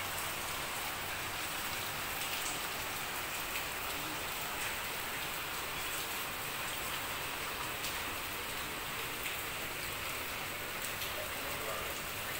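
Steady rain falling, with a few sharp drop ticks close by scattered through it.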